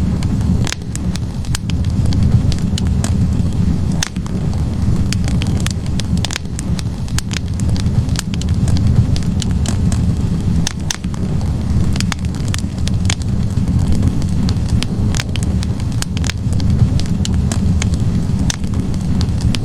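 Wood fire burning in a fireplace: a steady low roar of flames with frequent sharp crackles and pops from the logs at irregular intervals.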